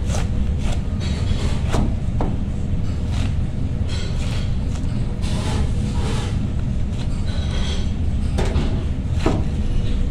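Large kitchen knife cutting through a raw head of cabbage on a cutting board: crisp crunching slices through the leaves and a few sharp knocks of the blade on the board, over a steady low rumble.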